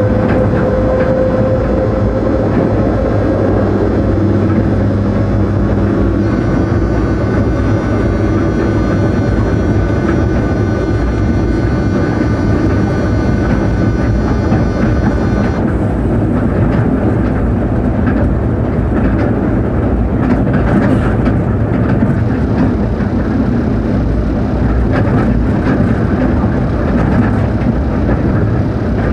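Inside the driver's cab of a ČD class 363 electric locomotive running at speed: a steady rumble of the wheels and running gear with whining tones from the electrical equipment. One tone rises slowly over the first few seconds, and a high whine cuts off suddenly about halfway through.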